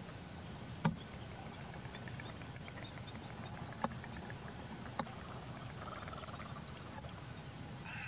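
Steady low outdoor background rumble, with three short sharp clicks: one about a second in, and two more close together about four and five seconds in.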